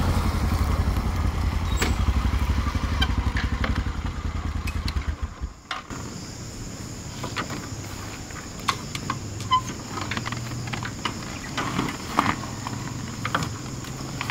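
Motorcycle engine running with a steady low pulsing, fading and cutting off about five and a half seconds in. After it, a steady high-pitched whine and scattered light clicks remain.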